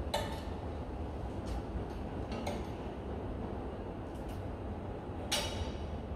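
A handful of sharp metallic clinks, the loudest about five seconds in, over a steady low rumble.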